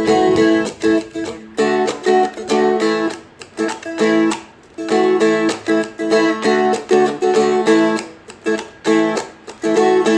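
Seagull Merlin, a small four-string fretted instrument, strummed with a pick in a steady rhythm, playing a G, D, A chord run with short breaks between phrases.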